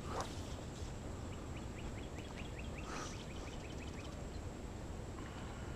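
A small bird singing a rapid trill of short falling notes, about seven a second for some two seconds, over steady outdoor ambience. Two soft knocks come near the start and about three seconds in.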